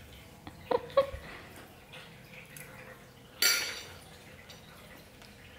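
Cutlery knocking against dishware while pasta is eaten: two light clinks about a second in, then a louder clatter a little past the middle.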